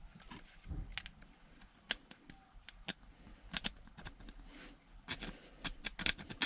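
Short sharp clicks and snips of a small hand tool working at a metal switch contact, a few at a time, then a quicker run of them near the end.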